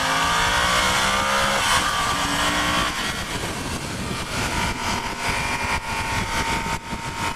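Yamaha Super Ténéré 1200's parallel-twin engine pulling hard under acceleration. Its pitch climbs, then drops at gear changes about one and a half and three seconds in, and it settles into a steady run. Wind rushes over the onboard microphone.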